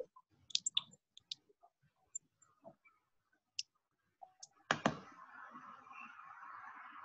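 Scattered light clicks of a computer mouse and keyboard. Just before five seconds in come two sharper clicks, then a steady hiss sets in.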